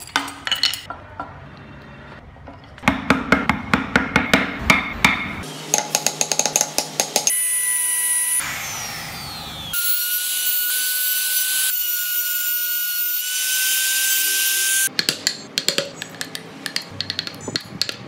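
Hand carving of wood with chisels and gouges: quick runs of sharp scraping and tapping strokes. Partway through, a compact electric trim router whines, winds down with a falling pitch, then runs steadily for about five seconds as it cuts grille slots. Then the rapid chisel strokes return.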